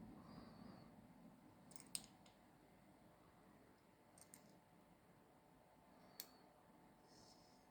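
Near silence broken by three faint, sharp clicks of small repair tools on the smartwatch's parts, about two, four and six seconds in.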